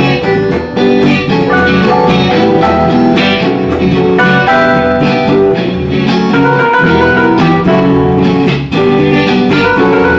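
Live band playing electric guitars with keyboard, a continuous full-band passage with the guitars to the fore.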